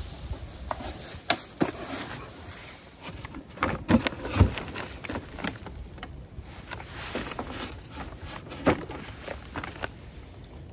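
Irregular rustling and crunching with scattered knocks, from someone moving about on dry fallen leaves beside the beehives; the loudest knocks come about four seconds in and again near the end.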